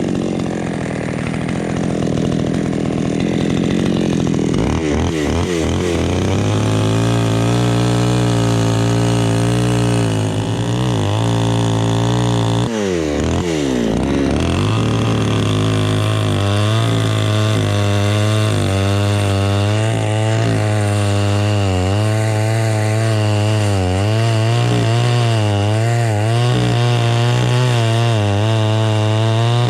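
Two-stroke chainsaw running at high revs, cutting into a jackfruit trunk; its pitch wavers as the chain bites, dips sharply about 13 seconds in and then picks back up.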